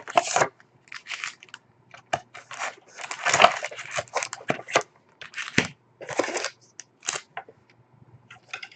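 Hockey card box packaging being torn open and handled: a run of short, irregular crinkling and ripping sounds of cardboard and pack wrappers.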